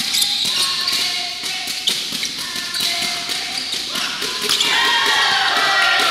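Badminton rally on a wooden indoor court: sharp racket hits on the shuttlecock and quick footfalls, with shoes squeaking on the floor and voices in the hall.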